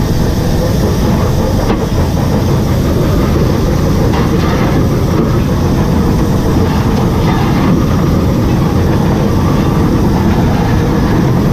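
Footplate noise of LNER Class A4 steam locomotive 60009 under way: a loud, steady rumble and rattle, heavy in the bass.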